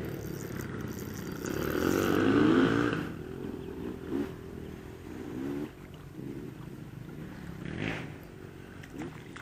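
Motorbike engines revving repeatedly, their pitch rising and falling, loudest about two seconds in and fainter afterwards.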